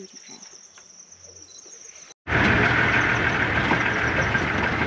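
Insects trilling steadily in the bush in a high, even tone, with faint voices. About two seconds in, an abrupt cut to a much louder, steady dense noise.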